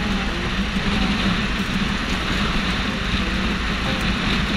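A van driving along a road, heard from a camera fixed to its outside: steady engine and road noise with the rush of passing air.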